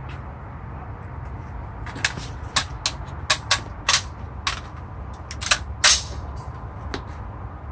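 Rifle and gear being handled on a shooting bench: a string of irregular, sharp clicks and knocks, the loudest pair about six seconds in, over a steady low background rumble.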